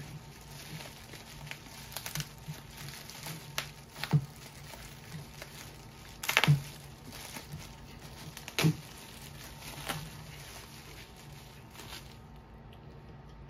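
Clear plastic bag crinkling and rustling as a die-cast model truck is unwrapped by hand. A few louder crackles come about four, six and a half and nine seconds in, and the rustling stops shortly before the end.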